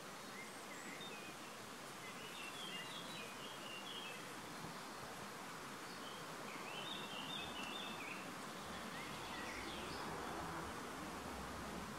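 Small songbirds twittering in two short bursts, one early and a second a few seconds later, over a steady outdoor hiss.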